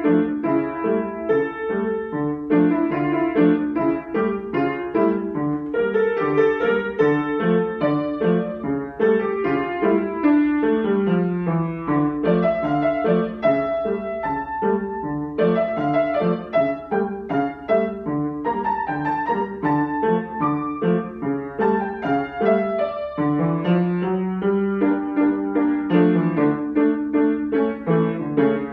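Acoustic grand piano being played: a continuous piece with a repeating pattern of lower notes under a higher melody line.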